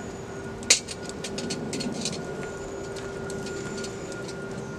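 Knife carving notches into a small wooden stick: a sharp crack less than a second in, then a run of small clicks and scrapes. A steady low hum runs underneath.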